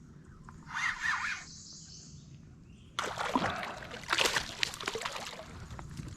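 Water splashing and dripping, starting suddenly about halfway through, as a hooked bass thrashes at the surface and is brought up to the kayak. A short high-pitched call is heard about a second in.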